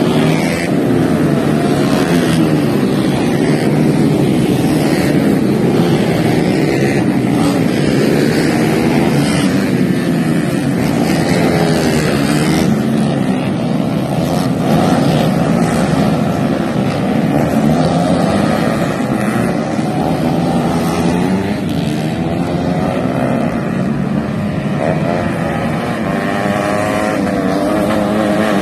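Several 125 cc four-stroke underbone racing motorcycles running hard together, their engine notes overlapping and rising and falling in pitch as they rev.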